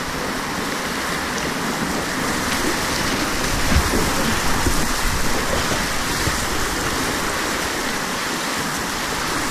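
Whitewater river rapids rushing steadily close around a kayak, with a soft low knock or two about four seconds in.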